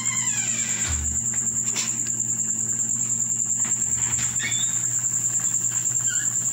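A cricket chirping: a steady, high-pitched, fast-pulsing trill, with a couple of faint low bumps.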